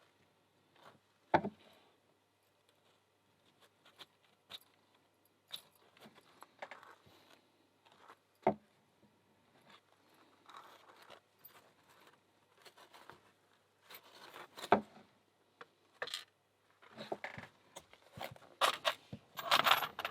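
Small metal lock parts clicking and clattering as an American 1100 padlock is gutted by hand: scattered sharp knocks, the loudest about a second in, near the middle and about three-quarters through, and a denser run of clatter near the end.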